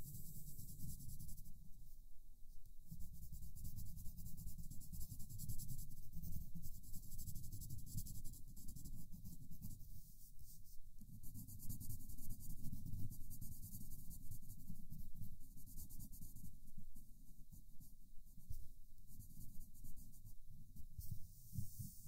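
Coloured pencil scratching across paper in many quick colouring strokes, close to the microphone.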